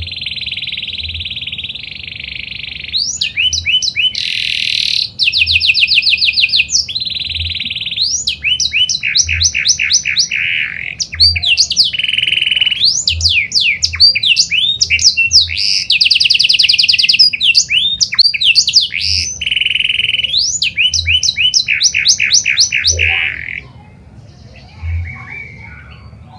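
Pied ('panda') domestic canary singing a long, unbroken, high-pitched song of rapid trills, rolls and rising whistled notes. The song stops about 23 seconds in, and a few short, fainter notes follow.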